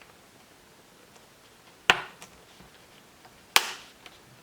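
Plastic retaining clips of an HP Pavilion dv6 screen bezel snapping loose as the bezel is pried off: two sharp clicks, about a second and a half apart.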